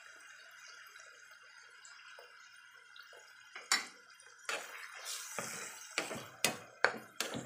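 Onion, tomato and chili sauce simmering in a wok with faint bubbling and small pops. About three and a half seconds in, a wooden spatula starts stirring, and it knocks and scrapes against the pan in a run of sharp clacks.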